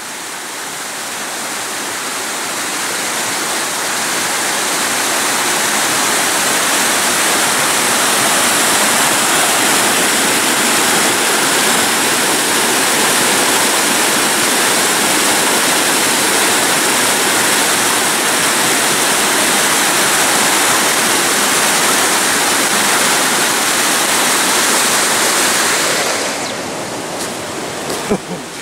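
Rocky stream rushing and splashing over boulders in whitewater. It is a loud, steady rush that swells over the first few seconds and falls away near the end, where a few faint clicks come in.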